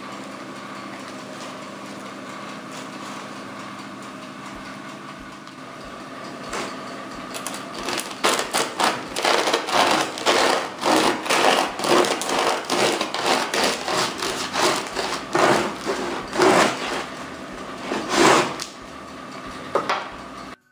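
Serrated bread knife sawing through the crisp crust of a ciabatta loaf on a wooden bread board, quick rasping strokes about two a second that start about eight seconds in. Before that there is only a steady low hum.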